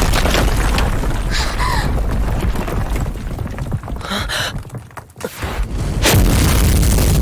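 Battle sound effects: a heavy boom with a dense, rumbling roar that runs on, drops away about five seconds in, then surges loudly again about a second later as the monster's body breaks apart.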